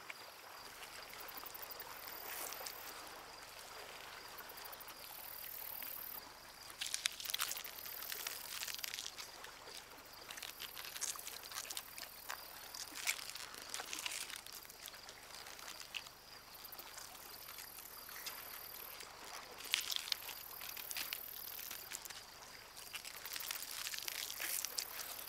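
Quiet marsh ambience: water trickling in irregular spells, over a faint steady high whine.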